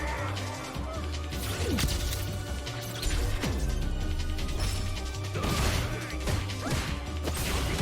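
Fighting-game audio: repeated hit and crash sound effects over background music.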